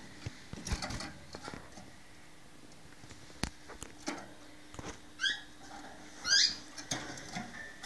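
A caged canary gives two short chirp calls about five and six seconds in, the second the louder, among scattered light clicks and taps.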